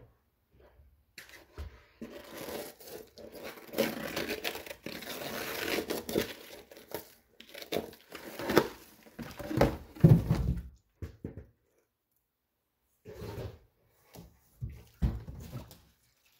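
Tearing and crinkling of material being ripped and crumpled, followed by a run of sharp knocks and thumps, the loudest about ten seconds in, with a few more knocks near the end.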